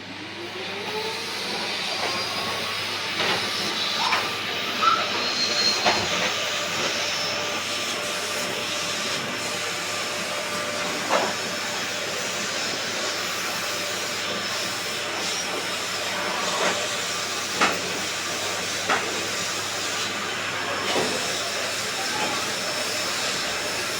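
Vacuum cleaner running: its motor whines up as it is switched on, then runs with a steady rushing hiss and occasional small clicks. It is switched off at the end and the sound cuts off suddenly.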